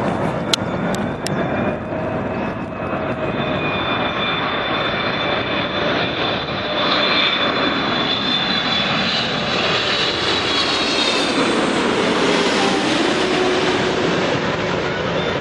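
Jet airliner passing close by: the roar of its engines with a high turbine whine swells to its loudest, then the pitch drops as it goes past.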